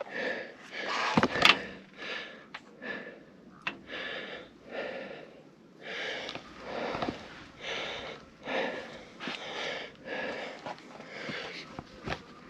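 A person breathing hard close to the microphone, quick rhythmic breaths roughly one to two a second, with a few sharp clicks.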